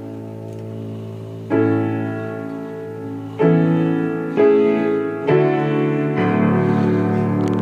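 Piano playing slow, sustained chords. After a held chord, new chords are struck about a second and a half in and then roughly once a second, each ringing on into the next.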